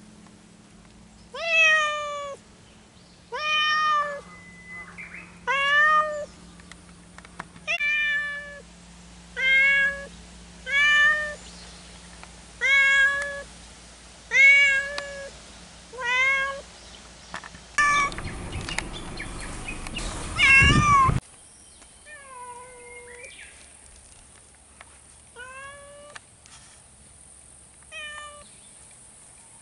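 A cat meowing over and over, a loud call about every second and a half, each one rising then falling in pitch. About eighteen seconds in a rushing noise comes in for a few seconds, and after it the meows go on fainter and further apart.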